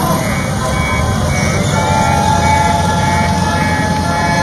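Engines of passing parade vehicles, including the small 3 HP gasoline engines of miniature Model T cars, running with a steady low rumble. About two seconds in, a long steady high tone starts and holds.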